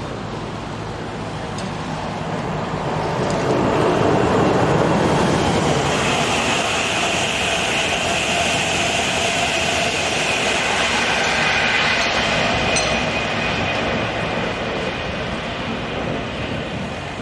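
Passenger train passing on the main line: its noise swells over a few seconds, holds with a steady high whine on top, then fades away.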